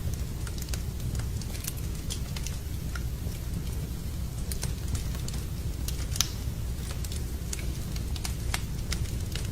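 Wood fire crackling in a fireplace: scattered sharp pops over a steady low rumble, with one louder pop about six seconds in.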